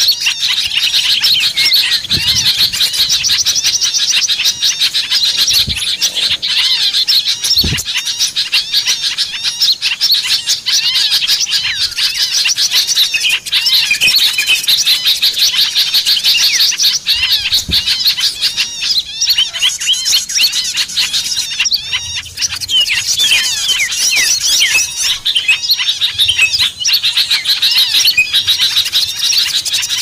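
Dense, continuous chorus of many small songbirds chirping and twittering over one another, a bird-lure recording that mixes bulbul and flycatcher calls. A few dull low thumps sound now and then.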